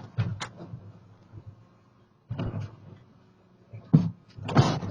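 A door being handled and shut: scattered knocks and rustles, a single sharp knock about four seconds in, then a louder rush of noise.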